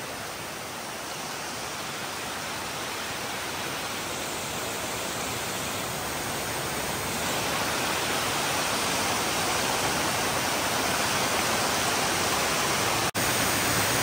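Rushing water: a steady, even hiss that grows slowly louder, cutting out for an instant about a second before the end.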